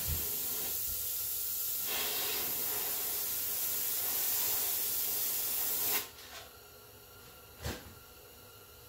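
Airbrush spraying paint, one steady hiss for about six seconds that cuts off sharply. A single short tap follows near the end.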